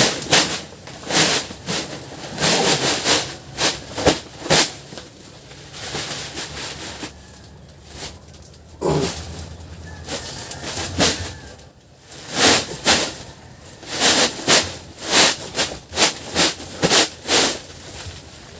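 Dry sawdust being poured and spread over a dirt floor: irregular hissing, scraping strokes that come in clusters, thinning out for a few seconds in the middle.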